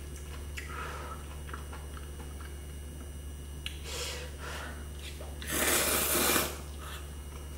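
A person slurping jjamppong ramyun noodles: one loud slurp lasting about a second, a little past halfway. Before it come a few faint eating and handling noises, over a steady low hum.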